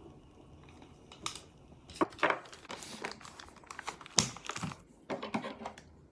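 Plastic food packaging crinkling and crackling in irregular bursts as it is handled, starting about a second in, with the sharpest crackles around two and four seconds in.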